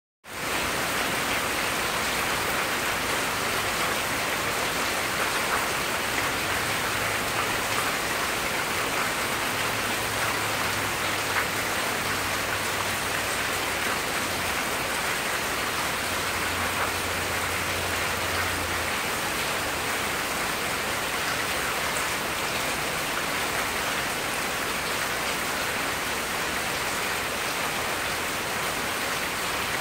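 Steady rain falling on wet ground, fallen leaves and lawn, an even hiss of drops throughout.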